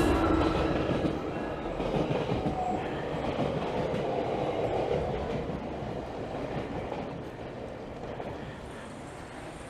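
A train running on rails with a clattering rumble that fades steadily as it moves away.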